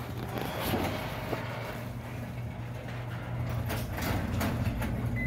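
Electric garage door opener running as a sectional garage door rolls down: a steady motor hum with clicking and rattling from the door panels and rollers.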